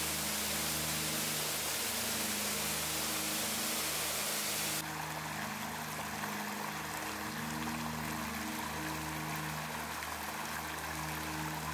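Waterfall: a steady rush of falling water. About five seconds in it cuts abruptly to a quieter forest stream flowing over stones. Soft background music with held low notes plays under both.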